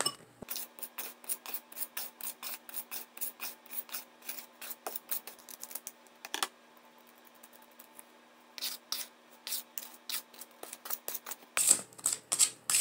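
A spoon scraping and stirring dry bath bomb powder in a paper bowl, in quick repeated strokes several times a second. The strokes stop for about two seconds in the middle, then resume, louder near the end.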